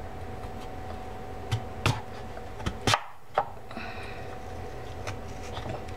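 Chef's knife cutting peeled raw sweet potato into wedges on a wooden cutting board. The blade knocks on the board about half a dozen times, with the strokes bunched in the middle.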